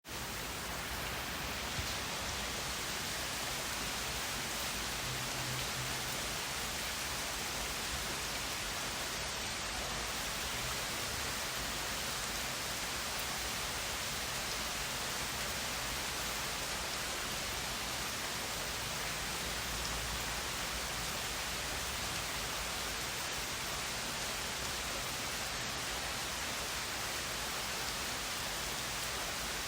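Steady rain falling: an even, unbroken hiss with no distinct drops standing out.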